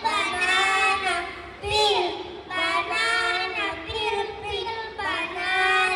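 A child singing, with long held notes that bend in pitch.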